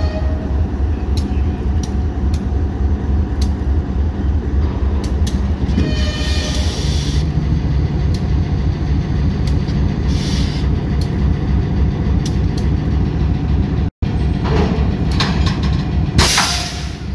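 Diesel-electric locomotive engine running steadily at low throttle as it creeps past, with scattered clicks from the wheels over the rail joints. There are a few short hisses of air, the brightest near the end.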